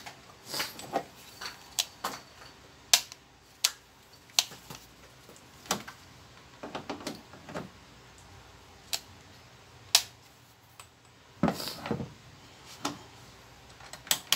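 Irregular clicks and knocks of a Bosch angle grinder being handled, turned over and set down on a wooden board. Its motor does not run: the carbon brushes have worn down to the auto cut-off.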